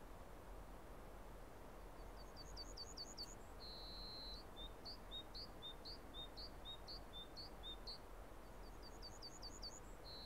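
A songbird singing a repeating phrase: a quick run of rising chirps, a held whistle, then a string of alternating high notes. The phrase starts again near the end. A faint steady hiss lies underneath.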